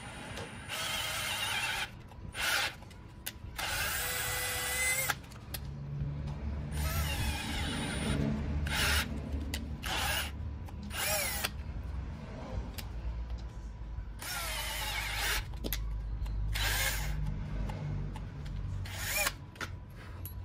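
Electric power drill run in about ten short bursts, each lasting from a fraction of a second to about a second and a half, its whine rising and falling in pitch.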